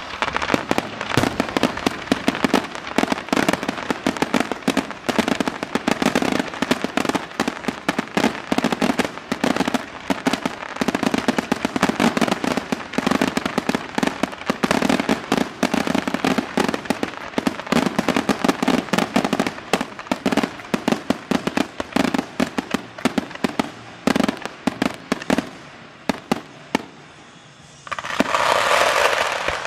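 Fireworks crackling and popping in a dense, rapid string of sharp reports, thinning out toward the end. Near the end comes a steady hiss lasting about a second and a half.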